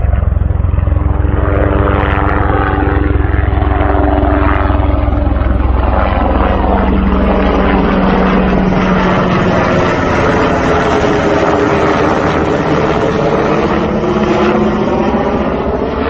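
Propeller-driven aerobatic light airplane's engine and propeller droning as it flies its display, the pitch of the engine note shifting up and down as it manoeuvres.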